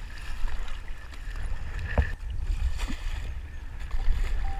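Kayak paddling: the paddle dipping and water splashing and lapping around a plastic kayak hull, over a low rumble. There is one sharp knock about two seconds in.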